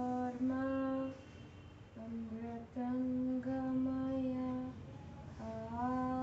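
A girl's voice chanting in long held notes on a nearly level pitch, stepping slightly down and back up, in three phrases with short breaths between them.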